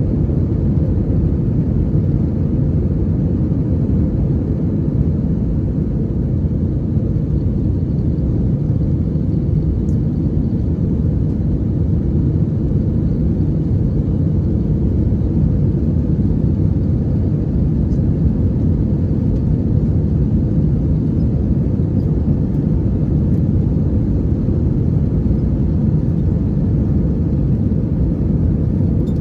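Steady, even cabin noise of an Airbus A321 in flight, heard from a window seat: engine and airflow noise, heavy in the low end and unbroken throughout.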